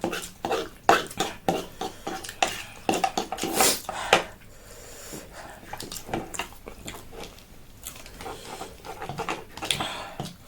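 Eating utensils clicking and clinking against bowls and dishes, many quick knocks in the first four seconds and then fewer and softer ones.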